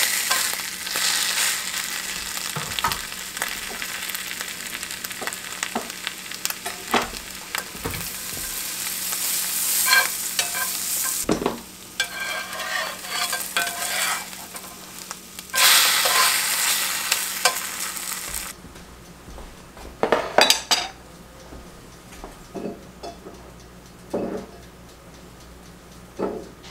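Eggs and onions sizzling in a hot cast-iron skillet, with scrapes and taps of a spatula as the eggs are turned. About two-thirds of the way in the sizzle drops away, leaving a few scattered kitchen clinks and knocks.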